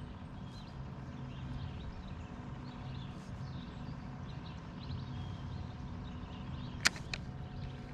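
Quiet outdoor ambience: faint bird chirps over a steady low hum, with two sharp clicks about a quarter second apart near the end.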